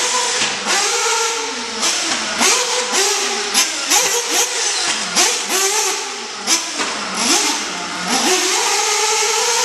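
Sworkz S35-4 Evo nitro RC buggy's small two-stroke nitro engine revving up and falling off over and over as it is driven round the track. The pitch climbs in quick sweeps about once or twice a second, with brief throttle blips between them.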